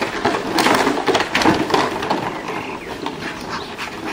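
A bundle of empty plastic bottles shaken, rattling and crackling irregularly. It is loudest in the first couple of seconds and eases off after.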